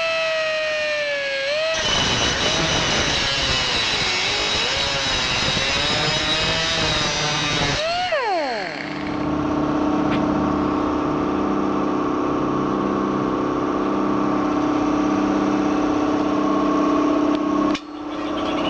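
Pneumatic rotary tool running: a high whine, joined after a couple of seconds by a harsh hissing grind for about six seconds. Then its pitch drops quickly as it winds down. After that a lower, steady machine hum with a pulsing beat runs until a brief break near the end.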